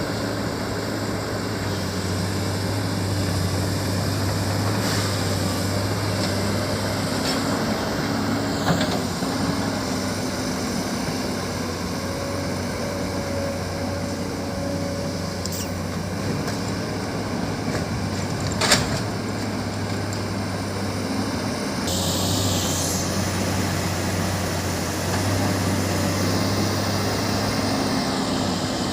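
Diesel engines of heavy construction machinery (dump truck and excavator) running steadily with a deep hum. Two sharp metallic knocks come about a third and two-thirds of the way through, and a short hiss follows soon after the second.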